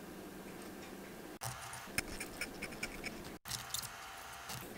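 Small irregular clicks and scrapes of watchmaker's tools (tweezers, pegwood) on tiny watch movement parts, over a steady low hum. The clicks start about a third of the way in and stop shortly before the end.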